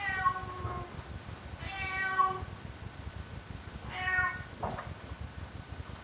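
Domestic cat meowing three times, about two seconds apart, the last meow shorter than the first two.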